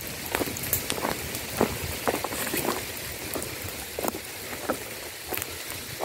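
Forest ground fire crackling and snapping as it burns through dry leaf litter and brushwood, over a steady hiss, with crunching steps on the dry forest floor.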